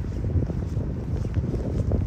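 Wind buffeting the microphone: a low, gusty rumble.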